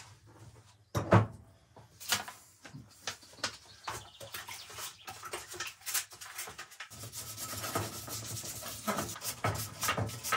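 A sharp knock about a second in, then scattered clatter as a bucket of water and tools are handled. From about seven seconds, steady rubbing of wet 600-grit sandpaper on the front grille of a Land Rover Discovery 4.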